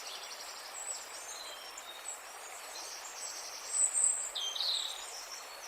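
Outdoor nature ambience: a steady background hiss with small birds chirping and trilling high up, with a louder trill about four seconds in.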